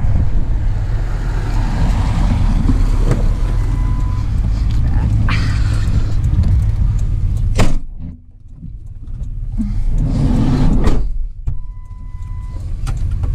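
Vehicle engine running with a steady low rumble, cut by one sharp bang about two-thirds of the way through, after which it drops away; a second wave of vehicle noise swells and fades shortly after.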